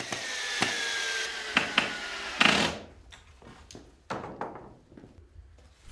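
Power drill driving into timber framing, its motor whine falling slowly in pitch for about two and a half seconds. It is followed by a few light knocks and clicks of wood being handled.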